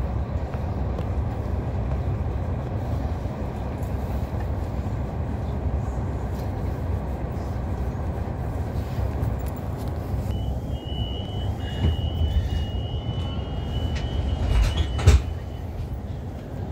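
Steady low rumble inside an Irish Rail Mk4 passenger carriage standing at the platform. About ten seconds in, a high beeping tone sounds for about five seconds, typical of the door-closing warning, then a single knock as the train moves off.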